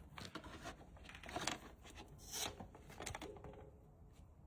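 A worn, chewed-up dirt bike chain guide being wiggled and worked loose by hand after its bolts are out, giving a series of short scrapes, rattles and clicks.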